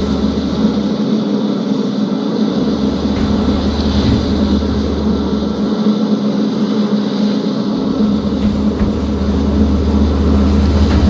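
Fishing boat's engine running steadily: a constant low drone with a deep rumble that drops away twice for a second or two.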